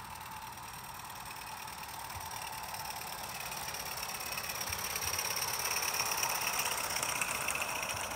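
Hugh Saunders "Jubilee" 0-4-0T, a small meths-fired live-steam garden-railway locomotive, running along the track with its coaches in tow. It makes a fast, steady mechanical chatter that grows louder as it approaches and is loudest about six seconds in.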